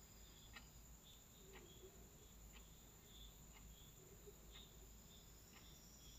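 Near silence: faint room tone with a soft tick about once a second and faint high chirps.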